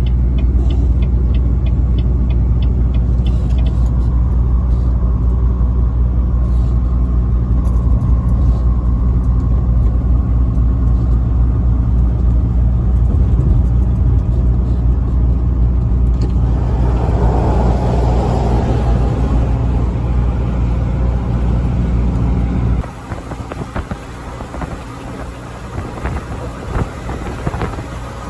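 A truck's engine drone while driving, low and steady, with light rapid ticking in the first few seconds. About 23 seconds in the drone cuts off abruptly, leaving quieter road noise.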